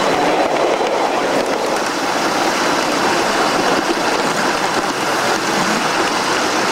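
Live-steam Shay, a geared ride-on scale steam locomotive, running along the track: a steady rushing and clatter of its exhaust and wheels on the rails.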